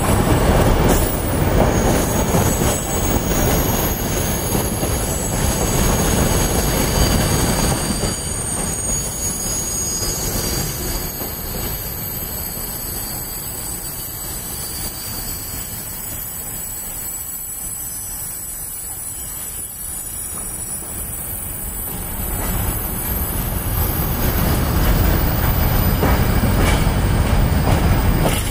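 A long freight train of container wagons rolling past, its wheels and cars rumbling steadily with thin high squeals from the wheels. It eases off for a stretch in the middle and grows louder again near the end.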